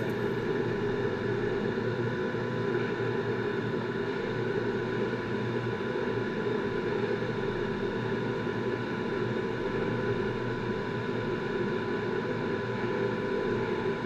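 Haas VF4 CNC vertical mill running steadily: an even machine hum and hiss with several constant tones from the spindle and drives, holding level throughout.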